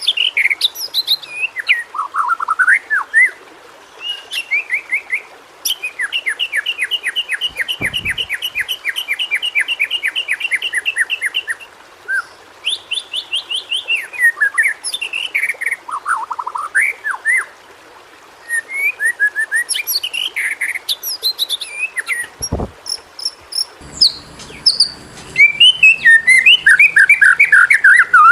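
White-rumped shama (murai batu) singing a long, varied song of whistled phrases, including a fast run of repeated notes lasting about five seconds. The song grows louder and denser near the end.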